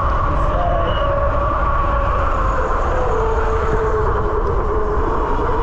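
Electric bike motor whining steadily under way, its pitch dipping slightly lower about halfway through, over heavy wind rumble on the microphone.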